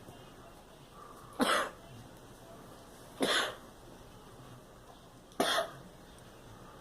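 A girl coughing: three single coughs, about two seconds apart.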